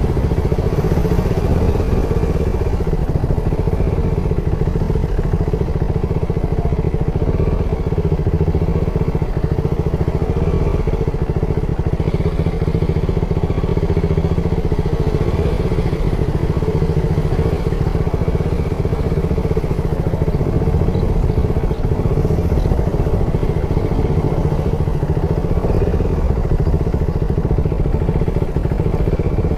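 Steady vehicle engine and road noise while travelling at an even pace.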